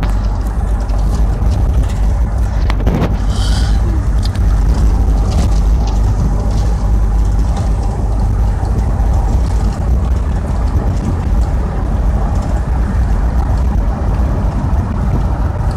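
Steady low rumble of road and engine noise inside a moving car's cabin, with a brief higher hiss about three seconds in.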